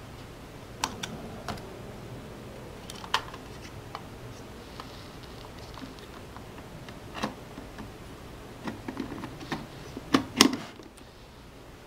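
Scattered light clicks and taps from a GeoVision dome camera's housing cover being handled and fitted onto the camera body, ending in two louder knocks close together about ten seconds in as it is pressed into place.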